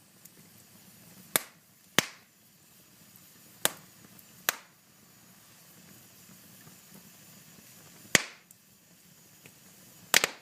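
Fire crackling: sharp, irregular pops about six times, over a faint steady hiss.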